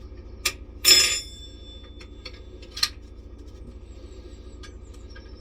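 Metal tool parts clinking as they are set in place: a light click, then a loud clink about a second in that rings on briefly, and one more click about two seconds later.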